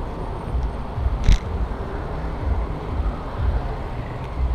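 Low, uneven vehicle rumble, with the rustle of a plastic bag and a zippered chest bag being handled and one sharp click about a second in.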